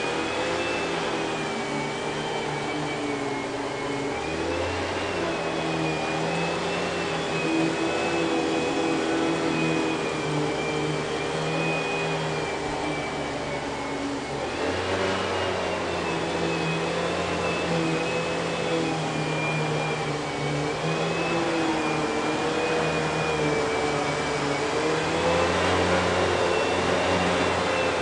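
Kenmore Progressive canister vacuum cleaner running with its power nozzle on carpet: a steady motor whine and hum whose pitch wavers slowly up and down. The canister has a Panasonic-made motor, a larger, slightly inferior version that sounds odd for this line of Panasonic-built Kenmore canisters.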